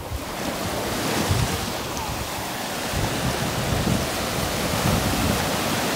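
Small waves breaking and washing up a sandy beach, with wind buffeting the microphone in uneven low rumbles.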